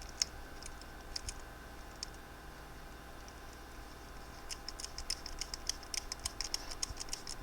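Faint light clicks of a T8 Torx driver turning a handle bolt on a titanium folding knife: a few scattered clicks at first, then a quick run of small clicks about halfway through.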